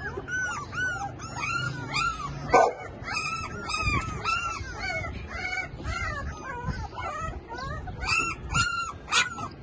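Labrador retriever puppies whimpering and yelping: a quick run of short, high-pitched cries that rise and fall, several a second, with one louder yelp about two and a half seconds in.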